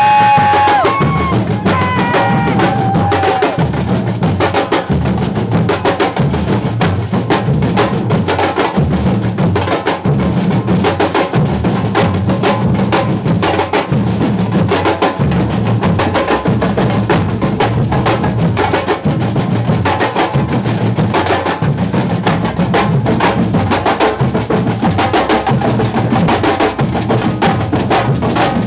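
Percussion-driven music with a steady, fast beat of drum thumps and sharp clicks. A few sliding pitched notes sound in the first couple of seconds.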